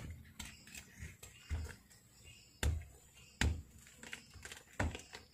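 Knife blade cutting and prying into a durian's thick spiky husk, making a series of irregular sharp cracks and knocks, some with a dull thud.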